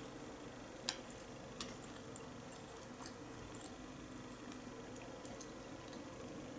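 Faint sounds of a person eating and chewing food, with scattered small clicks and taps, the loudest about a second in.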